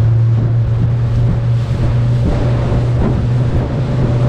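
Outboard motor of a small open fiberglass passenger boat running steadily at cruising speed, a constant low hum, with wind buffeting the microphone and water rushing past the hull.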